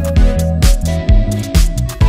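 Background music with a heavy bass line and a steady beat, a kick about twice a second.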